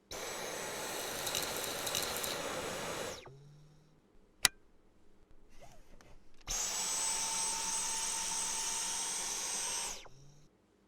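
Cordless stick vacuum motor running with a steady high whine, switched off and spinning down after about three seconds. A sharp click follows, then it runs again for about three and a half seconds and spins down once more.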